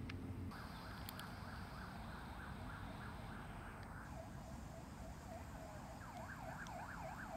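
Emergency vehicle siren, first a steady warbling tone, then from about four seconds in a yelp that sweeps up and down, quickening near the end, over a low rumble.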